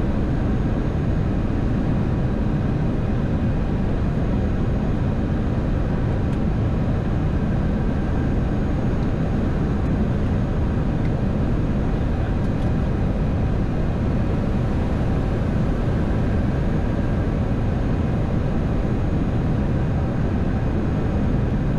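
Flight deck noise of an Embraer 175 airliner on final approach: a steady, deep rush of airflow and engine noise at constant loudness, with a few faint steady tones above it.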